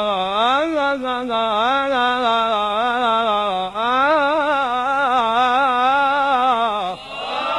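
Male munshid singing a long, melismatic line of Arabic religious chant solo, with no instruments. The pitch wavers in quick ornamental turns, with a short breath partway through. The line breaks off about seven seconds in.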